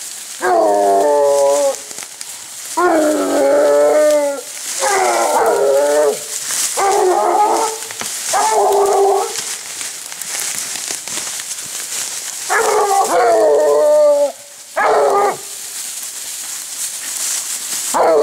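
Blue Gascony basset hounds giving tongue on the hunt: long drawn-out bays, about eight of them, some overlapping, with a pause of a few seconds in the middle.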